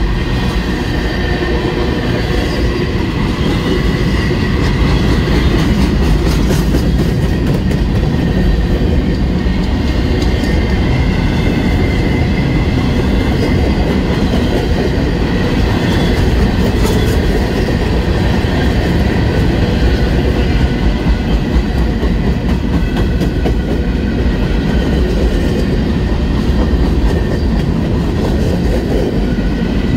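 A manifest freight train's cars rolling past close by: a steady loud rumble of wheels on rail with scattered clicks and a faint steady whine.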